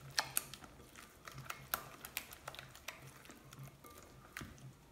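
Silicone spatula stirring thick chili seasoning paste in a glass bowl: faint, irregular clicks and scrapes against the glass, several a second.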